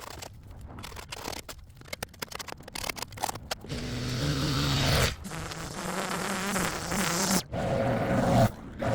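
Rapid scraping and scratching for the first few seconds, then a small engine running steadily. The engine sound cuts off abruptly a few times.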